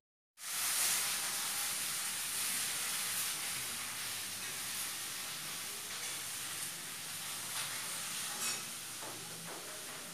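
A steady, even hiss, brightest in the high range, with a few faint brief rustles near the end.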